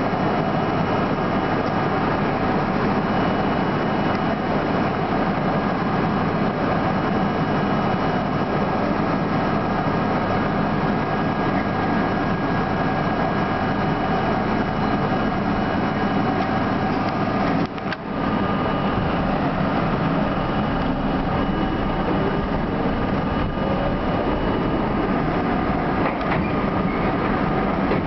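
R32 subway car running underground, a steady hum and rumble with a few faint steady tones. About two-thirds of the way through the sound briefly drops out, and after that the low rumble is stronger.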